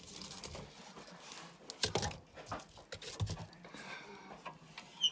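A few knocks and clunks at a wood-burning stove with its metal firebox door open, with soft rustling in between. There are two knocks close together about two seconds in, another a little after three seconds, and one near the end.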